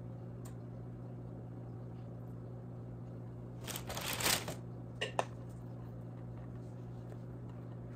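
Steady low hum with a short scraping rustle about four seconds in and two light clicks a second later: a spatula working cake batter out of a mixing bowl.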